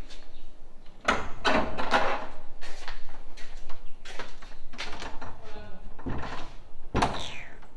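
Several sharp clicks and knocks at a panelled wooden door as it is handled from outside.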